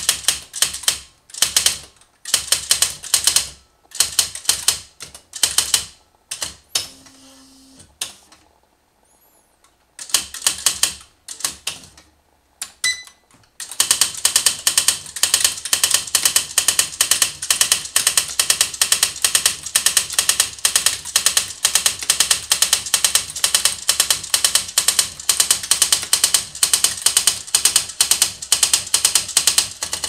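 Smith Corona XL 1900 electronic typewriter typing, its daisy-wheel print mechanism striking in quick clattering runs with short gaps. There is a short low hum about seven seconds in and a brief beep about thirteen seconds in. From there the machine prints in a fast, even, unbroken stream of strikes.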